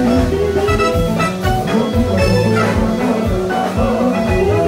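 Instrumental music with melodic instruments and drums, without singing.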